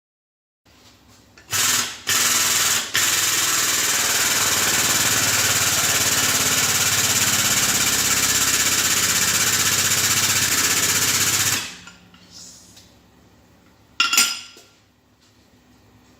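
A power tool running with a fast, even rattle: two short bursts, then a steady run of about nine seconds that stops abruptly. A brief clatter follows near the end.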